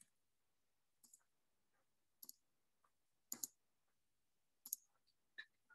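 Computer mouse clicks, about one a second, some of them double-clicks, as a screen share and slide show are set up.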